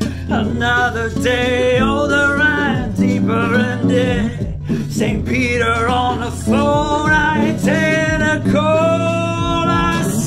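Music played live on an MPC Live 2 for the rhythm, virtual instruments and loops: a steady low bass line under a wavering, voice-like melody.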